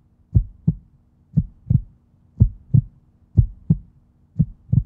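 Heartbeat sound effect: pairs of low thumps, lub-dub, about once a second, five beats in all, over a faint steady hum.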